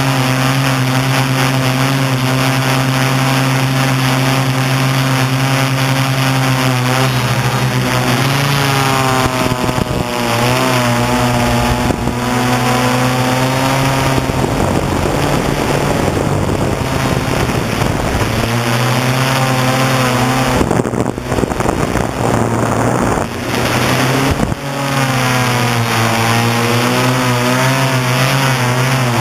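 Octocopter's eight motors and propellers humming in flight. The pitch shifts and wavers several times as the throttle changes, and for a few seconds midway the hum gives way to a rushing noise.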